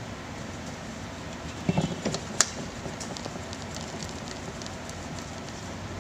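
Electric fan motor rotor being handled and wiped during cleaning: a few knocks and one sharp click about two seconds in, then faint light ticks, over a steady background hiss.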